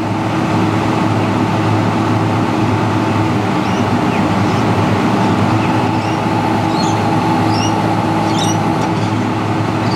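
Excavator's diesel engine running steadily at a constant pitch, close by, while its bucket is held raised for calibration.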